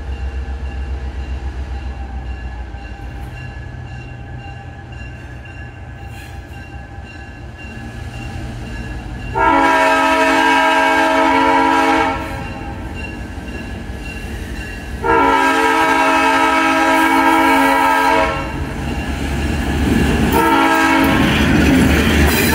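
EMD GP9 diesel-electric locomotive, with its two-stroke V16 engine rumbling, sounding its multi-chime air horn in two long blasts and starting a third about twenty seconds in, a grade-crossing signal. Near the end the locomotive rolls past close by, engine and wheels loud under the horn.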